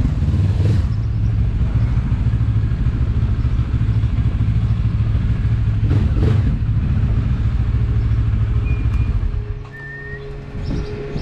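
Benelli TRK 702's parallel-twin engine running at low speed and idling, then switched off about nine and a half seconds in.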